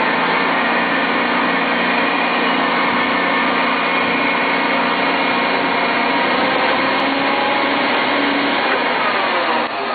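Toyota triple-mast forklift raising its mast under hydraulic power: a steady, loud drone and whine from the power unit and lift pump, with a brief dip in level near the end.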